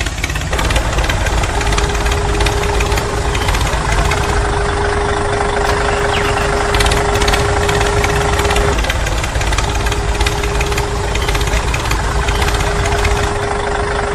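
A motor or engine running steadily with a dense rattle and a steady one-pitch hum, the hum dropping out briefly a little past the middle.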